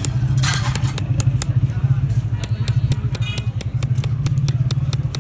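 Quick light taps of a small hammer on a steel engraving punch, chasing a design into a metal keychain pendant, at about four taps a second. A steady low engine drone runs underneath.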